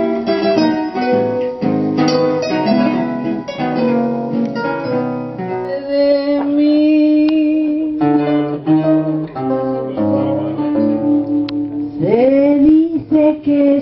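Acoustic guitar playing a tango accompaniment in plucked and strummed chords, with a long held melody note in the middle.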